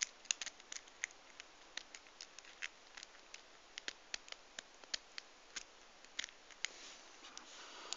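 Bogota rake being worked in and out of the keyway of an Abus Titalium 64TI/60 padlock, making sharp, irregular metallic clicks, a few a second, as it bounces the pin stacks.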